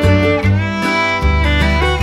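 Background instrumental music: sustained melody notes over a bass line that changes every half second or so.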